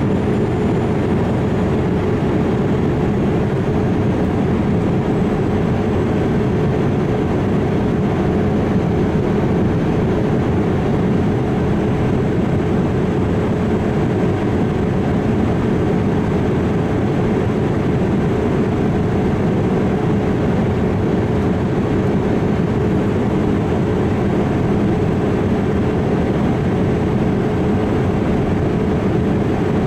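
Boeing 787-8 airliner, an even, unchanging rumble with a steady hum running through it.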